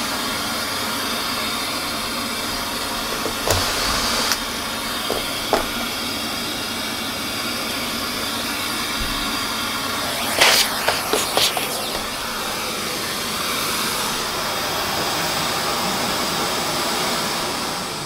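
Vacuum hose sucking dirt out of an opened Vorwerk EBK340 (Beam Serenity) power-brush head: a steady rushing hiss of suction, with a few quick clattering knocks about three and a half seconds in and again around ten seconds in. The suction starts to die away near the end.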